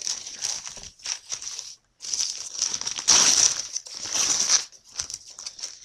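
Plastic packaging crinkling and rustling as it is handled, in irregular bursts, loudest a little past the middle.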